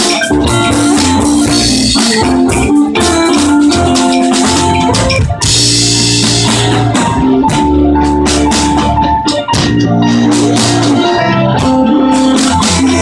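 Live band music: a drum kit and electric bass under organ-like keyboard chords, with strings and horn in the ensemble, and a bright cymbal wash about five and a half seconds in. The sound is loud and of poor quality.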